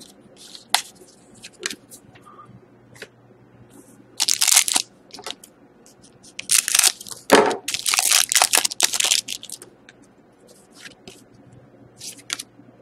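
A foil trading-card pack crinkling and tearing as it is cut open with scissors: one short burst of crackling about four seconds in, then a longer run of crackling near the middle. Light taps and clicks of cards being handled around it.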